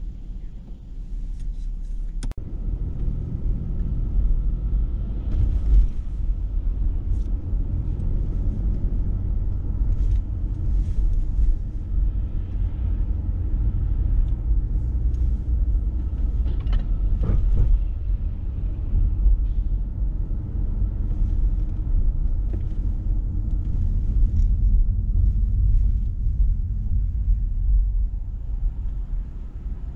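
Steady low rumble of a car driving, road and engine noise, starting with a click about two seconds in after a quieter stretch.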